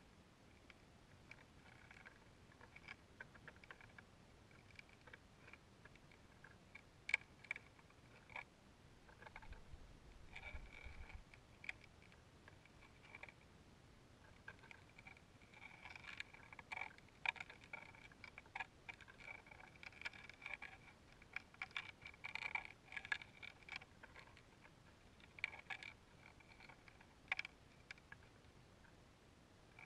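Near silence broken by faint, irregular clicks and creaks from a high-altitude balloon's payload and flight string. The clicks come thicker in the second half, with one sharper click about a quarter of the way in.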